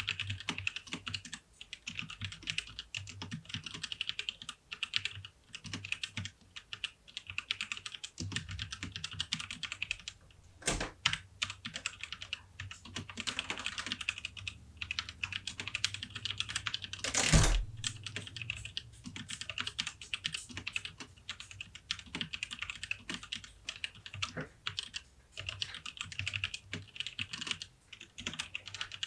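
Typing on a Tecware Phantom 104 mechanical keyboard with tactile Outemu Brown switches: a fast, continuous patter of key presses, with a couple of heavier strokes, the loudest about two-thirds of the way through.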